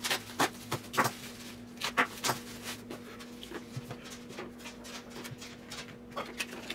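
Handling noise from a plastic bag being crinkled and rustled, with irregular sharp clicks and taps, loudest in the first couple of seconds, over a faint steady hum.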